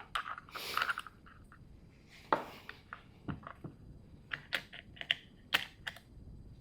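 Scattered clicks and light knocks, about half a dozen, from the plastic housing and parts of a small cordless electric chainsaw being handled, with a short rustle near the start.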